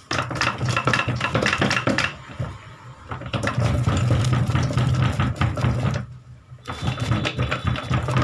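Gear shafts and selector forks of a Tata Zest gearbox being rocked and pulled in their casing, metal parts rattling and knocking in quick runs with two short pauses. The cluster is stuck: water got into the gearbox and has locked it in place.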